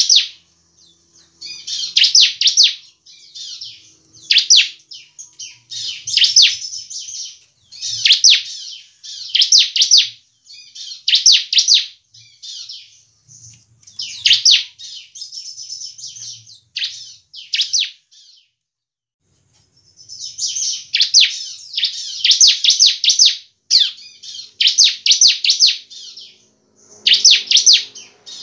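Bar-winged prinia (ciblek) singing: short, loud bursts of rapid, high, sharp chirps every second or two, with a pause of about two seconds past the middle.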